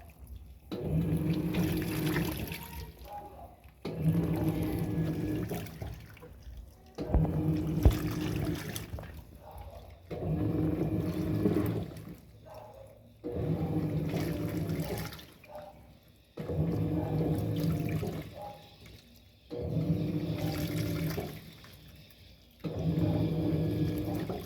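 Electrolux Turbo Economia LTD06 top-loading washing machine in its wash cycle. The motor hums and the water sloshes in bursts of about two seconds with short pauses between, repeating roughly every three seconds as the agitator works back and forth through the clothes.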